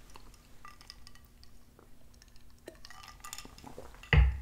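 Small clinks and taps of a clear drinking glass and tableware being handled on a table, then a dull thump about four seconds in as something is set down.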